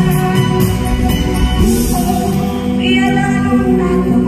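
A woman singing a slow ballad live into a microphone over instrumental accompaniment.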